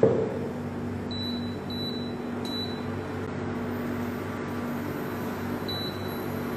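A single knock as a pot of water is set down on the stove, then a steady even hum and hiss.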